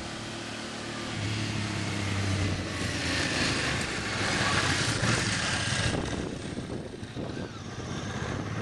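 Ducati S2R 1000 with its stock exhaust, the air-cooled V-twin driving past. The engine note builds as the bike approaches, is loudest about four to five seconds in as it goes by, then dies down and swells again near the end.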